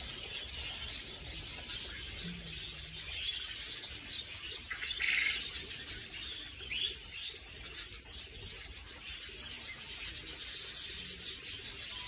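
A flock of budgerigars chattering: a constant mix of many short, high chirps, with a couple of louder calls standing out about five and seven seconds in.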